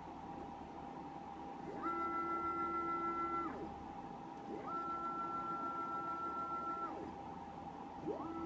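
CNC router stepper motors driving an axis through three moves, each with a rising whine as it speeds up, a steady pitched whine at travel speed, and a falling whine as it slows to a stop. A steady high whine from the motors holding position sounds under it.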